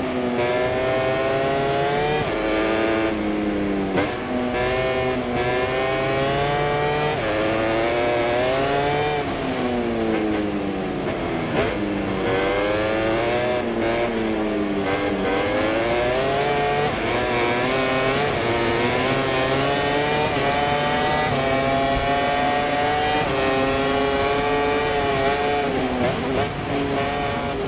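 MotoGP racing motorcycle engine at full race pace, heard from the rider's position. It climbs in pitch and drops sharply at quick upshifts, falls away twice as the bike slows for corners, and holds high and fairly steady through the last part.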